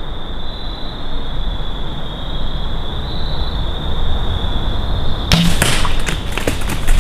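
About five seconds in, a traditional bow is shot and the arrow strikes a whitetail doe, quartering away, in the chest. The doe then crashes off through dry leaf litter in a run of sharp crackles and snaps.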